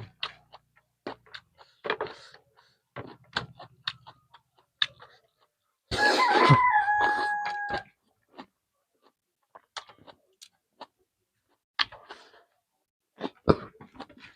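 Close-up mouth sounds of chewing and eating, short wet clicks and smacks. About six seconds in, a rooster crows once for about two seconds, the loudest sound.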